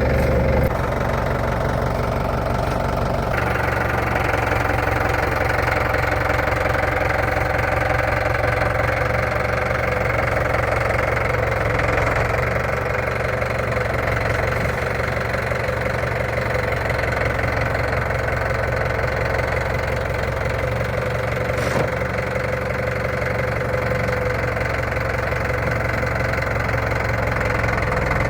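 A vehicle engine running steadily while driving, its note shifting about three seconds in.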